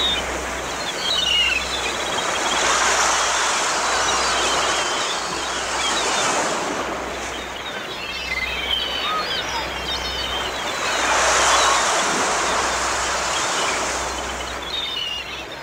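Beach ambience of sea surf, the wash of the waves swelling and falling back twice, with birds chirping over it.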